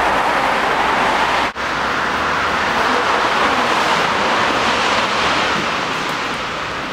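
Steady rushing background noise, broken for an instant about one and a half seconds in.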